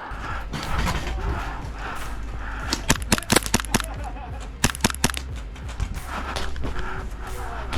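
Airsoft guns firing in quick bursts of sharp cracks, clustered about three seconds in and again about five seconds in, over a steady low rumble.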